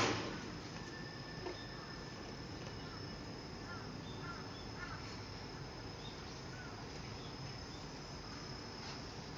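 Crickets trilling in a steady, high, unbroken tone, with a few faint short chirps in the middle. There is a single knock right at the start.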